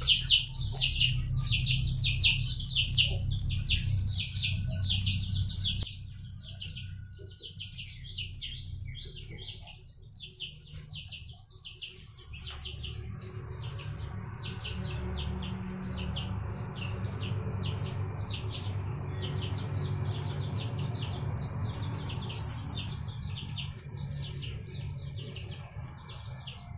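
A group of young chicks, about 20 days old, peeping without pause: a rapid run of short, high, falling peeps, loudest in the first six seconds. A steady low hum lies underneath.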